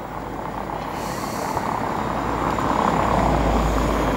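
Rumble of a heavy road vehicle, growing louder over about three seconds and then holding steady.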